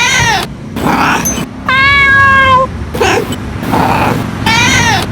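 Domestic cat meowing repeatedly: a series of separate meows, several falling in pitch, with a longer steady-pitched meow of about a second in the middle.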